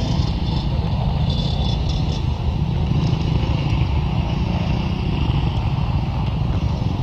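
Off-road motorcycle engine idling steadily, a low, even rumble.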